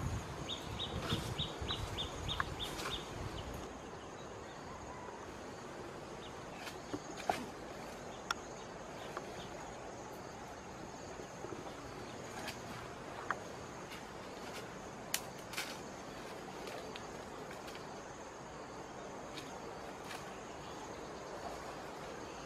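Faint dry-forest ambience: a person's footsteps and rustling in dry leaf litter for the first few seconds, with a quick run of about eight high chirps, then a faint steady high hiss and scattered sharp clicks and twig snaps as he moves through the undergrowth.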